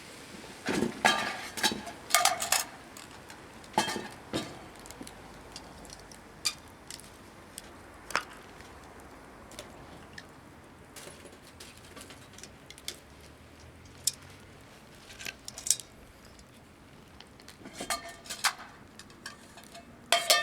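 Cookware and utensils clinking and knocking together in scattered, irregular clinks, with a cluster near the start and another near the end.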